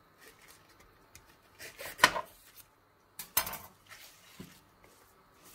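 Chef's knife cutting off an artichoke's stem on a plastic cutting board. There is a sharp knock of the blade on the board about two seconds in, then a rougher knock and rustle a second and a half later.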